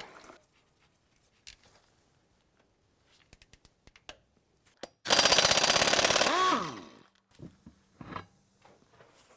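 Impact wrench hammering on a truck's wheel lug nut in a rapid rattle for about a second and a half, then winding down with a falling whine as it spins free. A few light tool clicks come before it.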